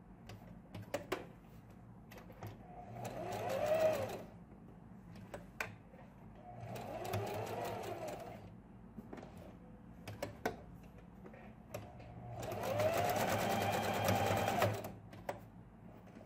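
Domestic electric sewing machine stitching in three short runs, each speeding up and then slowing down, with a few sharp clicks in the pauses between runs.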